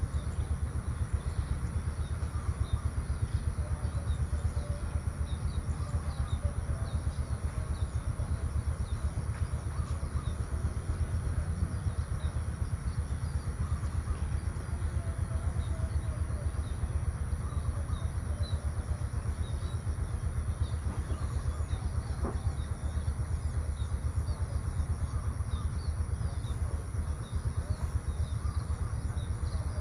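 Small birds chirping and twittering, many short calls, over a steady low rumble.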